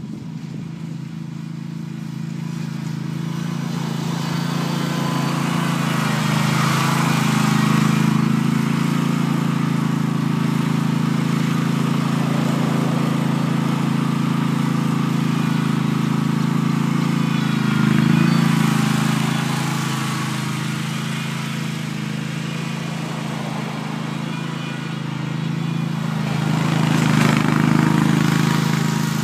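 Hustler Super Z zero-turn mower's engine running steadily at full speed on a timed run. It grows louder as the mower approaches, then swells twice more, about two-thirds of the way through and near the end, as it passes closer.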